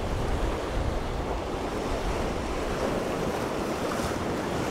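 Steady wash of ocean surf on a rocky shore, with wind buffeting the microphone.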